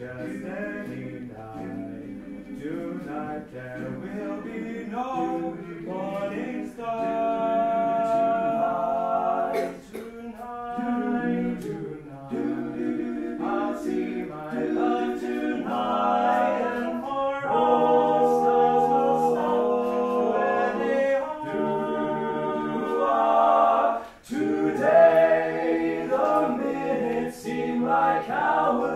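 Several voices singing a cappella in harmony, with long held notes in phrases and a short break about three quarters of the way through.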